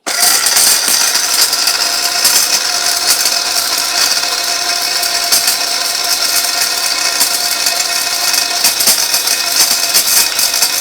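Electric spice grinder switched on and running at full speed, its motor and blades grinding a load of hard dried bahera (belleric myrobalan) nuts. It starts suddenly and runs as a loud, steady high-pitched whirring din.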